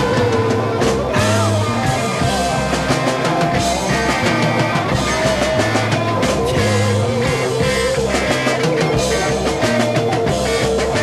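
Late-1960s psychedelic rock band recording playing without vocals: electric guitars, bass and drums, with a sustained, wavering lead line over a steady beat.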